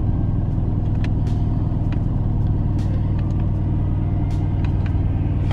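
Steady low rumble of a car heard from inside the cabin, with a few faint scattered ticks.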